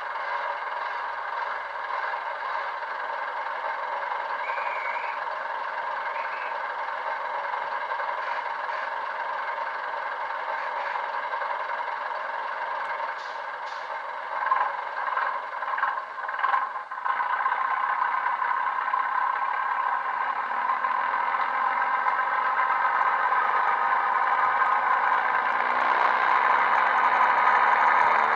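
Recorded diesel multiple unit engine sound played through the tiny speaker of a Bachmann Class 105 DMU model's Loksound sound decoder: idling steadily, a few short clanks a little past halfway, then the engine note builds and grows gradually louder as the unit pulls away.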